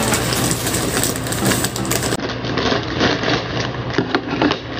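Scissors cutting into a plastic mailer bag and the plastic rustling as it is handled, with a few short sharp clicks in the second half, over a steady machine-like hum.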